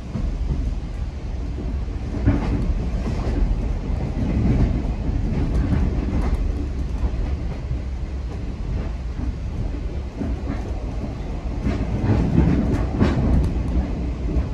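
Inside a moving GO Transit bilevel passenger coach: the steady rumble of the wheels running on the track, with occasional clicks and knocks from the rail joints, clustered about two seconds in and again near the end.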